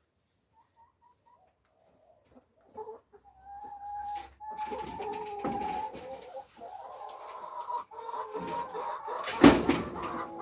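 Backyard hens clucking, starting a few seconds in and continuing, with a single sharp knock near the end that is the loudest sound.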